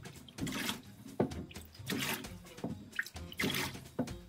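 Empty quart glass canning jars set down one after another on the counter, clinking and knocking against the surface and each other several times.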